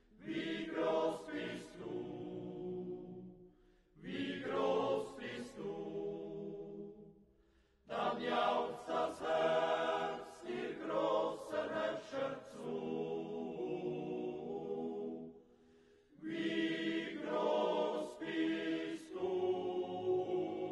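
A choir singing a slow hymn in long phrases, with short pauses for breath between them.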